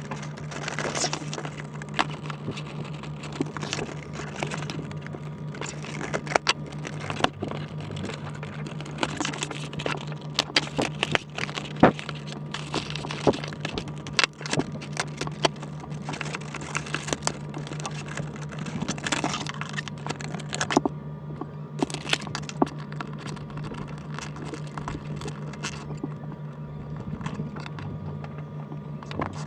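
Plastic packaging being handled: irregular crinkling, crackling and clicking as an action figure is worked out of its plastic tray. A steady low hum runs underneath.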